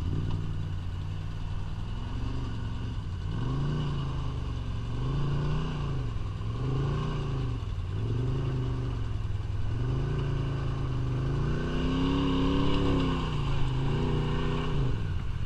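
Off-road vehicle engine revving up and falling back over and over, about every second and a half, as it works through a muddy ditch.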